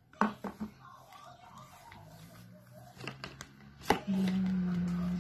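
Light clicks and taps of a cardboard phone box and a smartphone being handled, with a sharper click about four seconds in. A steady low hum follows for just over a second near the end.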